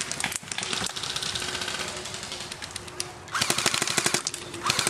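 Airsoft electric rifle firing on full auto: two rapid bursts of fast, evenly spaced shots in the second half, each about a second long, after scattered single shots and clicks.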